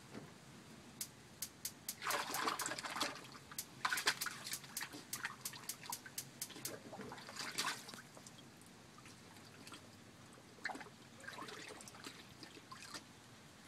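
Water splashing and dribbling in a dog's water bowl as a bull terrier puppy works at it with its mouth, in several bursts with short pauses between.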